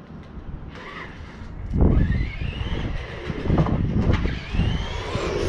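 Small electric motor of a radio-controlled car whining as it speeds up, rising in pitch about two seconds in and again about four seconds in, over low rumbling buffets.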